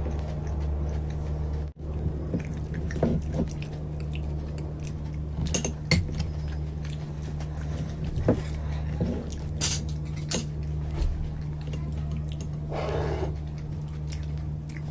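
Metal spoons clinking and scraping against ceramic bowls of rasmalai, with soft mouth sounds of eating the milky dessert. A steady low hum runs underneath.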